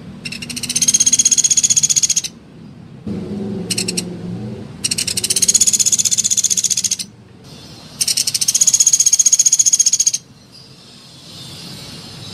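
Sunda pygmy woodpecker (pelatuk beras) giving rapid, high-pitched rattling trills, three of them about two seconds each, with a short one between the first two.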